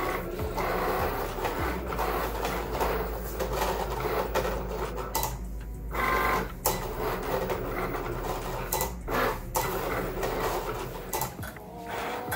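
Cricut cutting machine cutting heat transfer vinyl on its mat: the carriage and roller motors whir in short runs that shift in pitch, with a few brief pauses as the blade traces the design.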